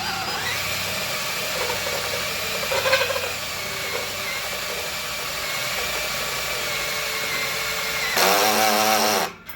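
Cordless drill turning an oiled annular cutter (Roto-Broach) through metal, a steady whine of drill and cutting. Near the end it gets louder and wavers for about a second, then the drill stops abruptly.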